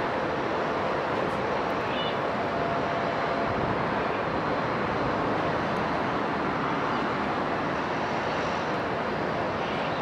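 Steady outdoor rushing noise with no distinct events, even in level throughout.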